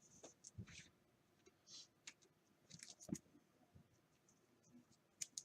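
Near silence broken by faint, irregularly spaced small clicks and ticks.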